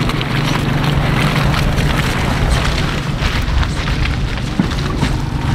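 Off-road 4x4 driving over rough ground: a steady engine drone under load, with constant rumbling and frequent crackles and knocks from the tyres and body on uneven terrain.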